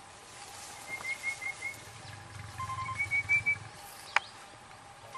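A bird calling in two runs of short whistled notes, about four notes to a run and slightly rising in the second, and a single sharp click a little after four seconds in.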